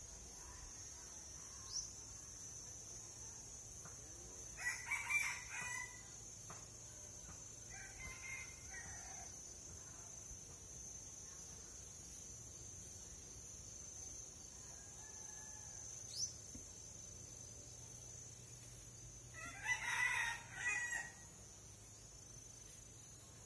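A rooster crowing twice, about five seconds in and again near the end, with a fainter call around eight seconds, over a steady high-pitched whine.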